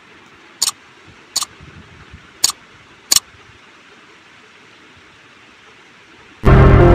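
Four sharp mouse-click sound effects of a like-and-subscribe button animation, spread over about two and a half seconds. Near the end, loud intro music with a heavy bass starts suddenly.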